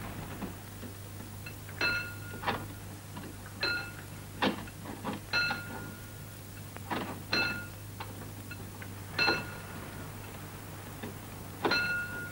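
Hand-cranked level-crossing barrier winch being turned: irregular sharp metallic clinks, about a dozen, several with a short bell-like ring, over a steady low hum.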